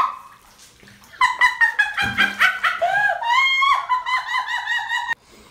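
Dogs whining and yelping in high-pitched cries, several overlapping calls in quick succession starting about a second in and cutting off suddenly near the end.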